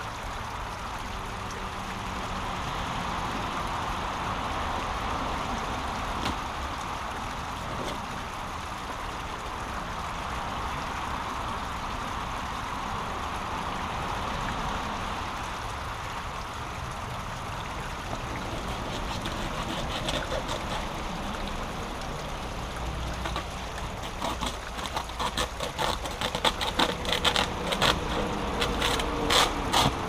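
Brook water running steadily over a small blocked waterfall. In the last third, a quick run of sharp crackles and knocks as tangled debris is pulled out and handled.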